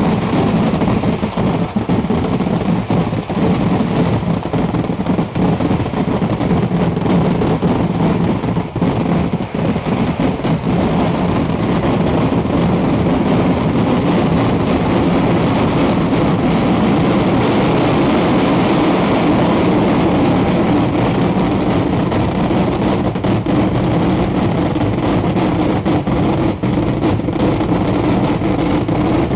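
Dense fireworks barrage: rapid explosions merging into a continuous loud rumble, with separate cracks standing out more in the first ten seconds or so.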